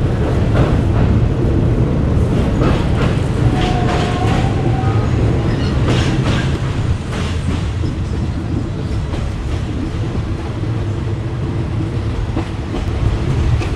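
A State Railway of Thailand passenger train running along the track, heard from inside a carriage with open windows: a steady low rumble of the wheels with irregular clacks over the rail joints.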